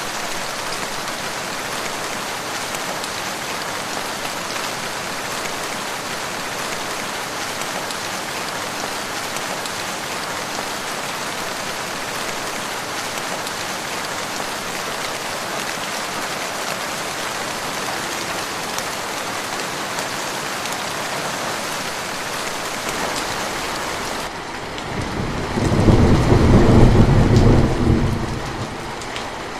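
Steady rain falling, an even hiss of drops. About 24 seconds in the rain goes softer, and a loud, low rumble of thunder rolls for about three seconds before fading under the rain.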